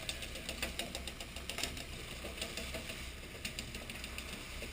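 Fishing boat's engine running steadily with a low throb, with irregular sharp clicks and knocks on top.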